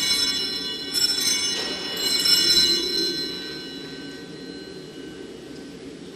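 Altar bells rung three times, about a second apart, each ring a cluster of high chiming tones that decays slowly and fades away about five seconds in. They mark the elevation at the consecration of the Mass.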